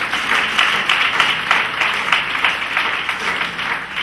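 Congregation applauding: many hands clapping at once in a dense, even patter that eases off near the end.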